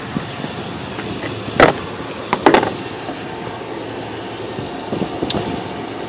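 Two sharp plastic clacks about a second apart as the pickup's underhood fuse-box cover is unclipped, over a steady low mechanical hum, with one fainter click near the end.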